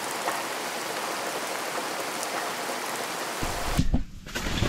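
Steady rain pattering, an even hiss with scattered drop ticks. About three and a half seconds in it cuts off and gives way to low rumbling with a few knocks.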